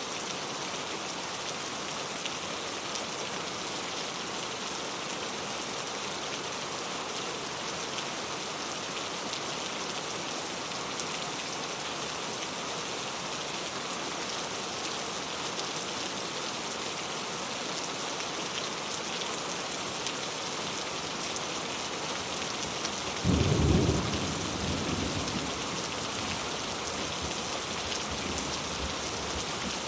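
Steady heavy rain falling, with a short clap of thunder rumbling about 23 seconds in and fading over a few seconds.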